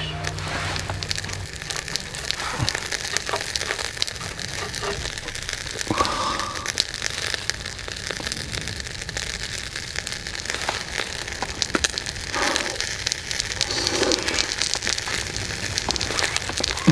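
A glazed fish fillet grilling on a wire mesh over charcoal in a shichirin, sizzling and crackling with a constant patter of fine pops.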